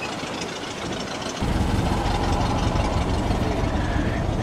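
Engine running with a steady low rumble that comes in abruptly about a second and a half in.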